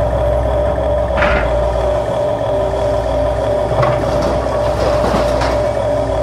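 Huina remote-control excavator running: a steady engine-like drone with a constant whine. Three brief scrapes come about a second in, near four seconds and after five seconds, as the bucket works the stony soil.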